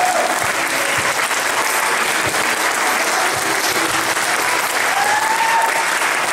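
Audience applauding steadily, with one voice calling out about five seconds in.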